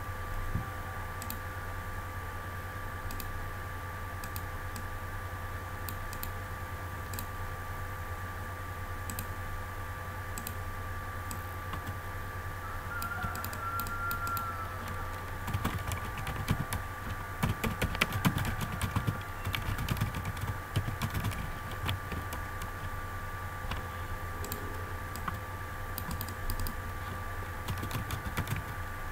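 Typing on a computer keyboard: scattered keystrokes that thicken into quick runs in the second half, over a steady low hum.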